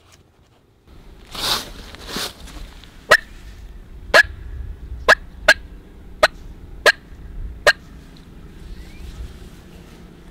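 Turkey clucks: seven short, sharp notes at uneven intervals. They follow two louder rushing noises about a second and a half in.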